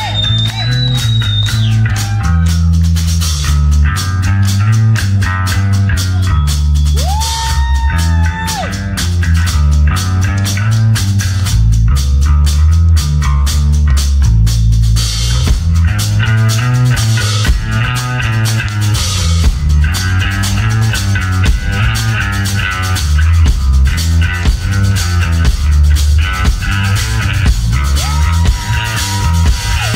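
Live electric bass guitar and drum kit playing an instrumental drum-and-bass duel: a driving bass line that moves through changing low notes, with drum hits keeping a steady beat. A few held high tones sound about a third of the way in and again near the end.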